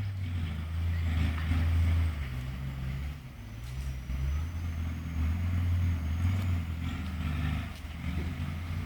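A motor vehicle's engine running, a low rumble whose pitch and loudness rise and fall.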